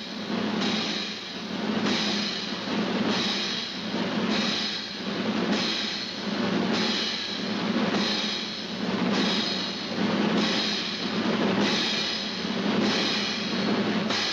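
Circus drum roll on a snare drum with cymbal, swelling in even waves a little more than once a second: the suspense roll that builds up to a daring stunt.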